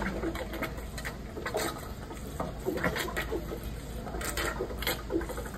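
Steady low machine hum with scattered small knocks and clicks.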